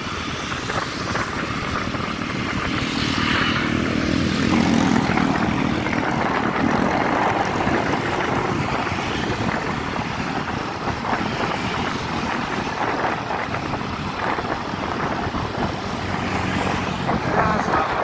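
Riding a motor scooter in traffic: a steady rush of wind and road noise with the low hum of small motorcycle engines, swelling about three seconds in and again near the end.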